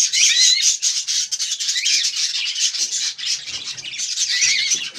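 Budgerigar chattering continuously, a rapid stream of high chirps with short warbled notes.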